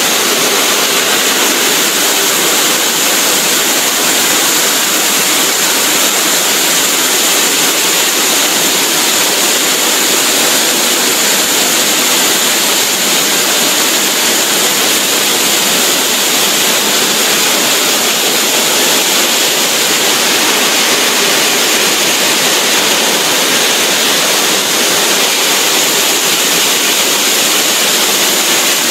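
QSQ-2200 multi-blade stone cutting machine's large circular saw blade cutting through a stone block under a water spray: a steady, loud rushing hiss with no break.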